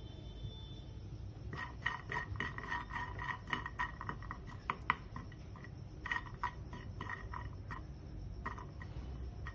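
Walnut halves being stirred with a spatula in a dry, oil-free non-stick frying pan: a quick, irregular run of light clicks and scrapes as the nuts and spatula knock against the pan. It starts about a second and a half in and pauses briefly near the end.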